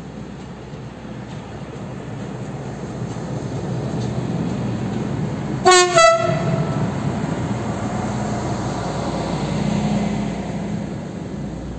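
Yellow SNCF works train passing close below: its running rumble builds up, and about halfway through its horn gives two short loud blasts. Wheel rumble and an engine hum follow as the vehicles go under, easing a little near the end.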